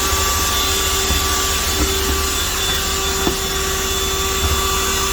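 Mini handheld vacuum cleaner running steadily with a constant whine, sucking up crumbs and leftover foam from a chewed mattress.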